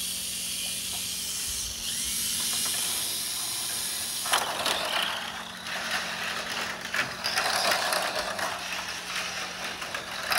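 Two Tamiya Mini 4WD cars with Hyper-Dash motors racing on a plastic three-lane track: an even high-pitched whir at first, then from about four seconds in a dense rattling clatter of the cars running through the lanes.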